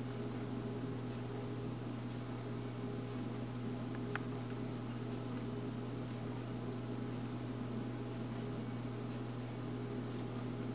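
Steady low machine hum over a faint hiss, with one small click about four seconds in.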